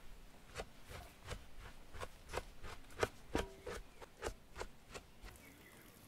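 Kitchen knife tapping down onto a wooden cutting board, a series of short, sharp knocks about three a second, as a lemon is cut. The knocks stop about five seconds in.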